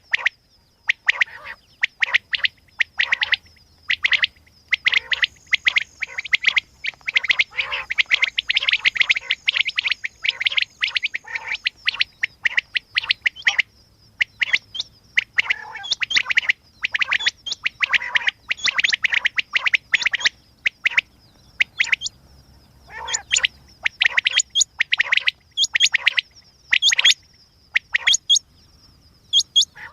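Quail calling, short sharp calls repeated in rapid runs with brief pauses between them. A faint steady high-pitched tone runs beneath the calls.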